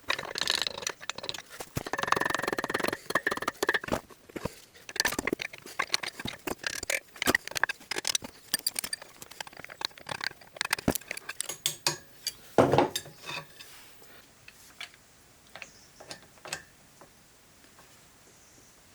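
Metal parts and tools clinking, rattling and knocking as they are handled, busiest in the first few seconds, with one louder knock near two-thirds of the way through, then fewer, fainter clicks near the end.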